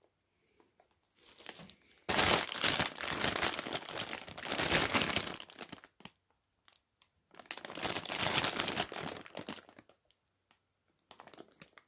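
Sealed plastic candy bag crinkling as it is handled and turned over, in bursts: a short one about a second in, a long stretch from about two to six seconds, and another from about seven to ten seconds.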